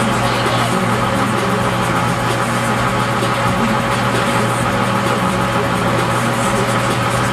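Shrimp boat's engine running steadily, a constant mechanical hum with an even, unchanging pitch.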